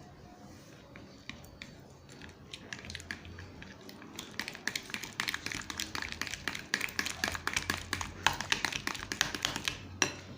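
A utensil stirring a thick shampoo-and-sugar slime mixture in a small container: rapid clicking and scraping taps that start a couple of seconds in and grow louder.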